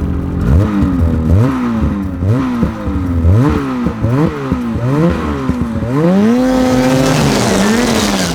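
Ski-Doo 850 Turbo snowmobile's two-stroke twin through its stock muffler, revved in a quick series of throttle blips, each rising and falling. Near the end it is held higher for about a second, then drops. It is heard over hard pack with little snow to soften the exhaust.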